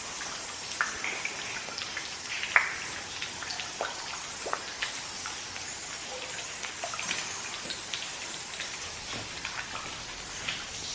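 Water dripping irregularly in a cave: scattered drops plinking over a steady hiss, with one louder drip about two and a half seconds in.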